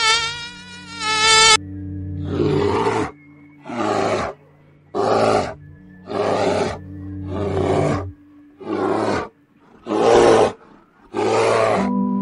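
Brown bears growling in a regular series of short roars, about one every second, over a steady musical drone. A brief high buzzing tone comes before them and stops about a second and a half in.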